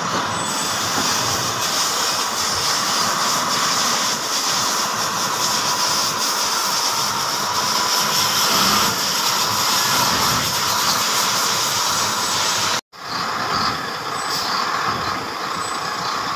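A wheel loader's diesel engine running steadily as it loads iron sand into a trailer dump truck, heard as an even rushing noise. The sound drops out for an instant about thirteen seconds in, then resumes.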